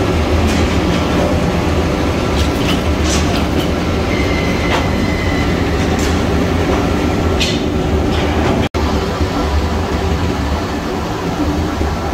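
Heat-treatment machinery for leaf springs running: a steady low mechanical hum with scattered metal clanks and rattles from the quench-tank chain conveyor and furnace belt. There is a brief squeal about halfway through and a momentary dropout near the end.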